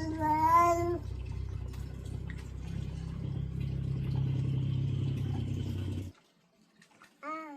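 A baby's drawn-out vocal sound, sliding in pitch, for about the first second, then a steady low hum that cuts off suddenly about six seconds in; a brief baby's vocal sound near the end.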